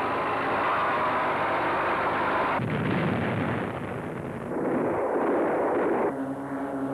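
A loud, dense crashing din of explosion-like noise, heavier and lower from about two and a half seconds in. About six seconds in it gives way abruptly to a steady low ringing tone.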